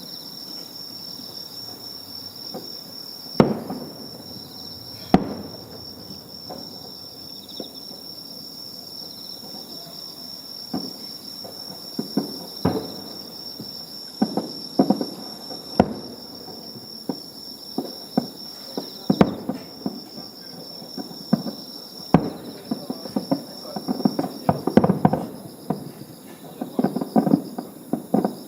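Fireworks bursting: single sharp bangs every few seconds, then a quicker run of bangs and crackles near the end, over a steady high chirring of insects.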